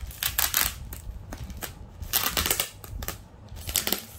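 Thin black plastic courier bag crinkling and rustling in several short bursts as hands grip and pull it open around a boxed parcel.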